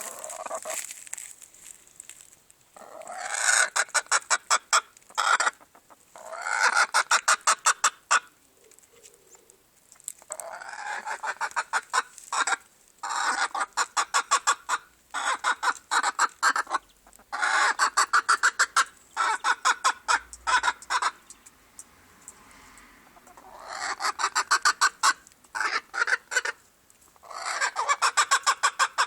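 Silver Appenzeller chicken clucking loudly in rapid runs of several clucks a second. Each run lasts a second or two and they come again and again with short pauses between.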